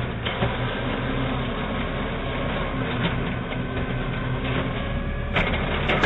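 A heavy vehicle's engine running steadily, with a louder burst of noise about five seconds in.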